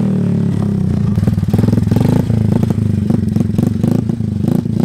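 Small three-wheeler ATV's engine running hard, revving up and down as the rider holds it up in a wheelie on its rear wheels.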